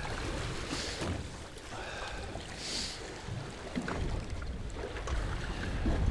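Wind buffeting the microphone with a low rumble, and water slapping against the hull of a small boat drifting in a chop, with two short splashy hisses, about a second in and near three seconds.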